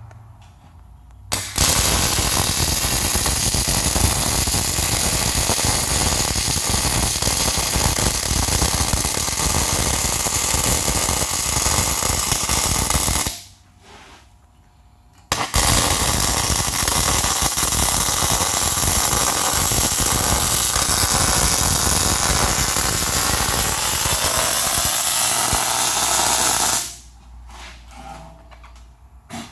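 Arc welding on a steel staircase stringer: the arc crackles in two long runs of about twelve seconds each, starting and stopping abruptly, with a pause of about two seconds between them.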